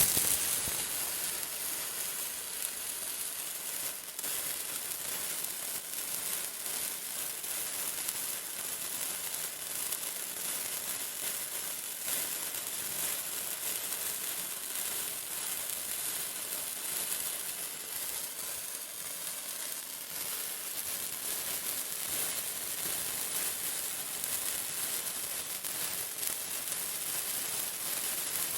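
Fireworks crackling and hissing in a dense, steady stream, with no separate bangs standing out.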